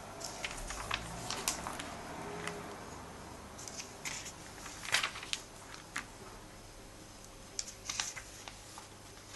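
A comic book being handled by hand: scattered rustles and small clicks in short clusters.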